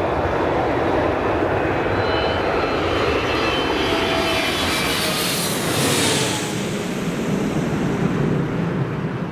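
Twin-engine jet airliner passing low overhead on approach with its landing gear down: a steady rush of engine noise with high whining tones that slide lower in pitch as it goes over. The high hiss is strongest about six seconds in.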